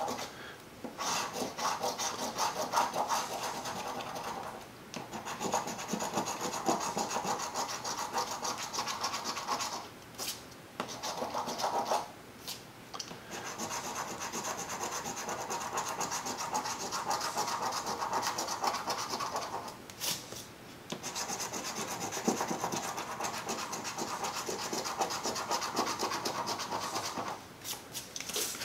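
A copper coin scraping the coating off a scratch-off lottery ticket: rapid rasping strokes in long runs, broken by a few short pauses.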